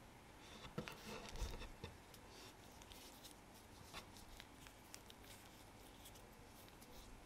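Faint handling sounds of hands stretching and twisting layered dough on a wooden cutting board: soft taps and rustles, loudest about one to two seconds in, then scattered light ticks.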